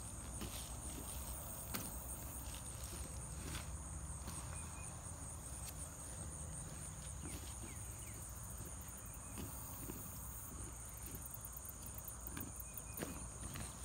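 Steady high-pitched chirring of insects such as crickets, with a low rumble and scattered faint knocks and rustles from handling in the grass.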